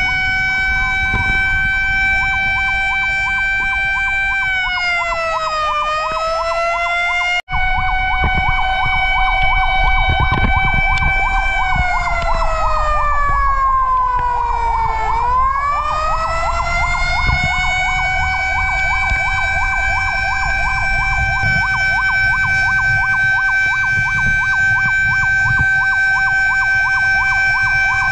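Fire truck sirens blaring on an emergency run. One siren holds a steady wail that twice sags in pitch and climbs back up, while a second siren yelps in a fast warble beneath it, over the low rumble of the moving truck. The sound cuts out for an instant about seven and a half seconds in.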